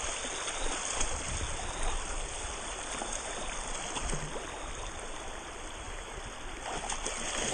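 A small creek running steadily, a constant rush of flowing water.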